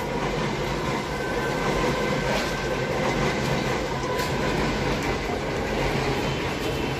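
Steady rumbling background noise with faint, thin whining tones held through it.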